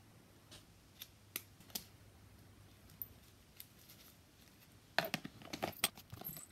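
Small plastic miniature furniture being handled: a few scattered light clicks and taps, then a busier run of clicking and clattering near the end as hands rummage among plastic miniatures in a clear plastic box.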